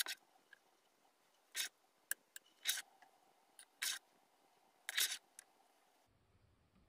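Spoon clicking and scraping against cast iron aebleskiver pans and a plastic batter bowl while batter is spooned into the pan cups: a handful of short, faint clicks and scrapes at irregular intervals.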